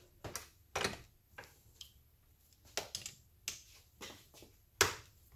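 Scattered light clicks and knocks of hands and tools working on a plastic motorcycle fairing clamped in a bench vise, with one sharper knock near the end.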